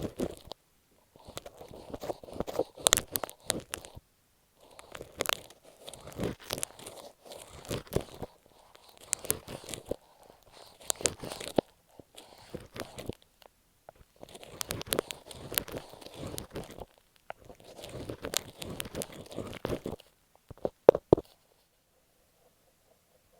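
Masking tape stuck over earphone microphones being scratched and crinkled right on the mic. It makes dense, crunchy crackling in bursts of two or three seconds with short pauses between. A few sharp clicks come near the end, then it stops.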